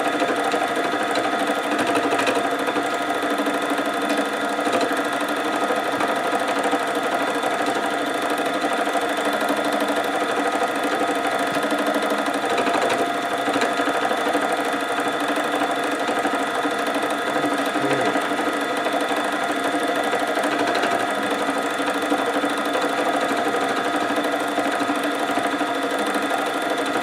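Simplicity 12-needle deluxe felting machine running at a steady speed, its needles punching wool into the felt base as the piece is moved under them. A steady, even mechanical hum with no change in speed.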